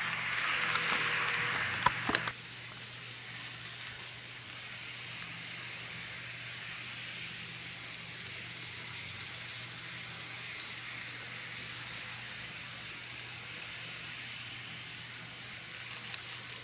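N-gauge model electric train (Kintetsu 1252 series) running past close by with a whirring rush and a couple of sharp clicks about two seconds in, then a quieter steady hiss as it runs on farther away around the track.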